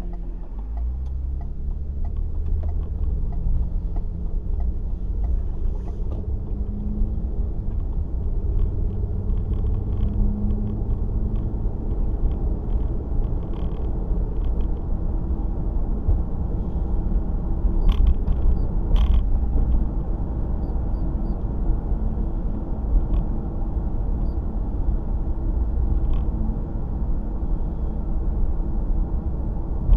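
Car engine and road rumble while driving. The engine tone climbs in steps over the first few seconds as the car picks up speed, then settles into a steady cruise.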